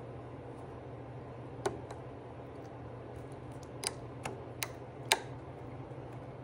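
Steel needle-nose pliers clicking against a C-clip and drive gear as the clip is worked onto a mower wheel's gear shaft: about five sharp metal ticks, spaced unevenly.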